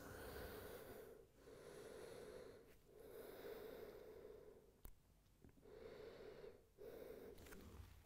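Faint breathing of a person resting after an arm-balance attempt: about five slow breaths, each one to two seconds long, with short pauses between them.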